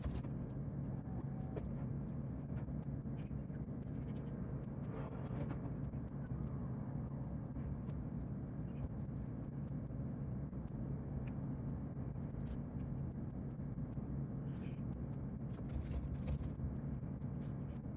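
A steady low machine hum, with faint, scattered clicks of laptop keys being typed.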